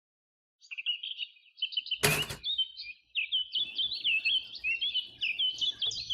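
Birds chirping and twittering in quick, busy phrases, with one loud thump about two seconds in.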